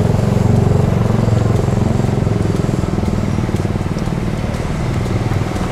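A motor vehicle engine running steadily, a low, evenly pulsing rumble with no revving.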